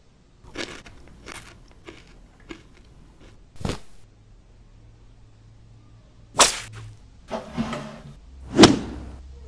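A few light knocks in the first seconds, then a run of sharp whip-like swishes of a cloth cape snapped through the air, the loudest near the end.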